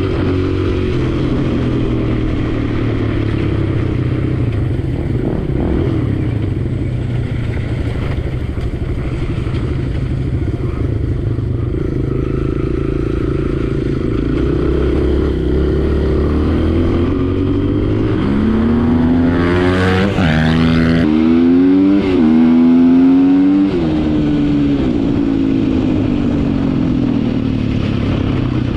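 Dirt bike engine running under throttle, revving up and down in several rising and falling sweeps toward the second half, loudest there.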